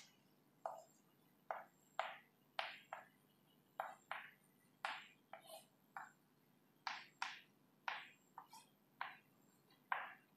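Chalk writing on a blackboard: short scratchy strokes and taps at an irregular pace, about two a second, one for each stroke of the letters.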